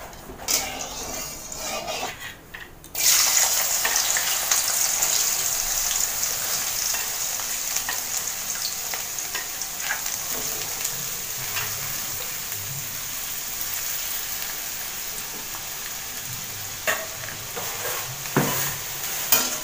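Thin-cut potatoes dropped into hot oil in a kadai. A loud sizzle starts suddenly about three seconds in and carries on steadily as they fry. A few sharp knocks come near the end.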